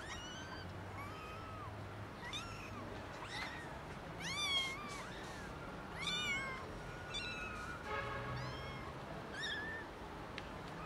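Young kittens meowing again and again, about a dozen short high-pitched cries that rise and fall, from more than one kitten. The two loudest come near the middle. These are hungry kittens calling for food.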